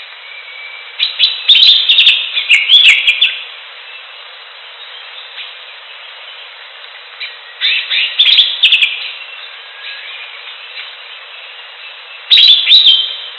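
Cucak ijo (green leafbird) singing in three bursts of quick, loud chirps and whistles: a longer phrase about a second in, another in the middle, and a short one near the end, over a steady background hiss.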